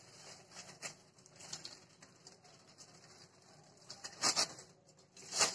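Aluminium foil rustling and crinkling as a sheet is peeled off soft dough by hand: faint handling rustles, then louder crinkles about four seconds in and again near the end.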